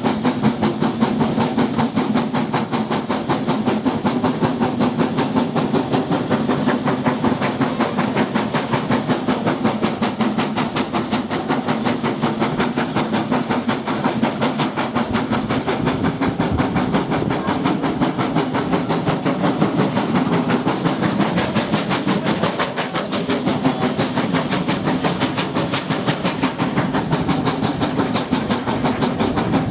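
Steam train heard from an open carriage window: the locomotive's exhaust chuffing in a rapid, even beat, mixed with wheel-on-rail noise and wind rush.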